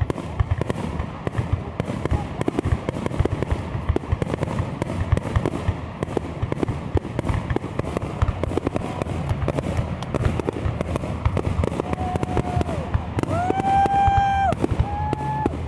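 A fireworks finale: many shells and firecrackers bursting in rapid, overlapping bangs and crackles. Near the end a steady high tone sounds three times over the bangs.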